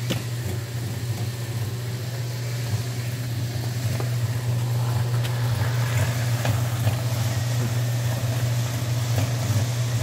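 A steady low engine hum, like a motor running at idle, with a few faint ticks over it.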